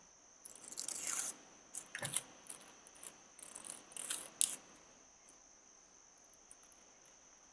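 Paper rustling and plastic drafting tools scraping across a sheet of pattern paper as they are handled, in three short bouts, over a faint steady high-pitched whine.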